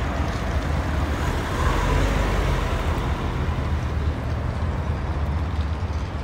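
City street traffic: cars driving past close by on the road next to the pavement, a steady rumble of engines and tyres.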